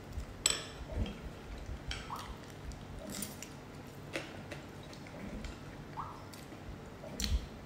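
Close-up eating sounds: chewing and slurping of soup, with scattered light clicks of a metal spoon against a glass bowl.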